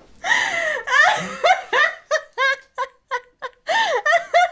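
A woman laughing hard: a run of short, high-pitched laughs with breathy gasps between them.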